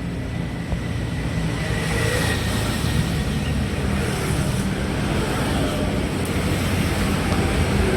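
Truck engine running with steady road noise, a low drone that slowly grows louder.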